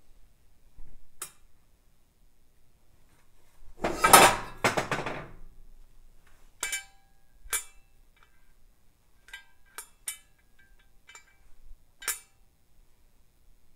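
Sharp metallic clinks and knocks from cast turbocharger turbine housings and their wastegate flaps being handled, with a louder clattering scrape about four seconds in.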